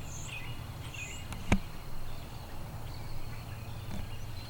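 Birds chirping in short, scattered calls over a low steady rumble, with one sharp click about a second and a half in.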